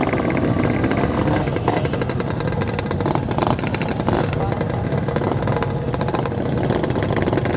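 Yamaha RX-King two-stroke motorcycle engine running steadily, with voices talking in the background.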